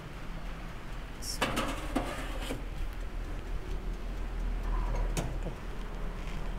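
Metal baking pan clattering and scraping as it is slid onto the rack of a Kirin toaster oven, a run of sharp knocks between one and three seconds in, then a single click about five seconds in as the oven's glass door shuts. A steady low hum runs underneath.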